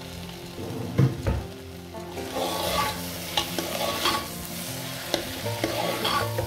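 Lentils frying in hot oil in a pan, sizzling, as a spoon stirs in the freshly added salt, turmeric and spices. There are a couple of knocks about a second in, then a steady run of scraping strokes against the pan from about two seconds in.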